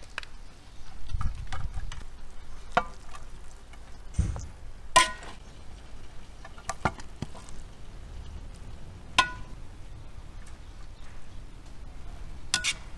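Metal skimmer scraping and clinking against a kazan and a ceramic plate as cooked meat is lifted out of the plov: scattered sharp clinks, some ringing briefly, the loudest about five and nine seconds in.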